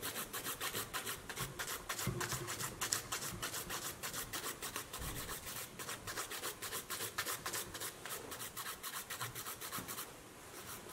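Hand nail file rasping back and forth in quick, even strokes over a cured UV camouflage gel layer on a fingernail, filing it down over the nail bed. The strokes ease off briefly near the end.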